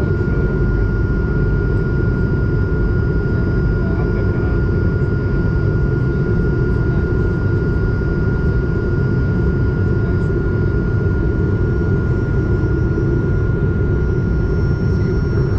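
Steady in-cabin noise of an Airbus A220 in descent, its Pratt & Whitney PW1500G geared turbofans running with a deep rush of air. A thin, steady high tone sits over the rumble.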